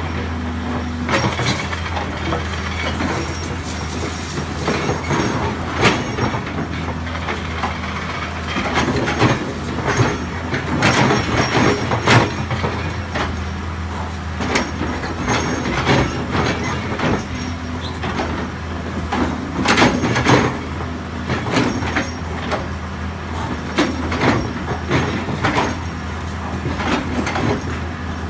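Excavator diesel engine running steadily, under irregular crunching and clanking as its hydraulic concrete pulverizer jaw works through a pile of concrete and rebar rubble.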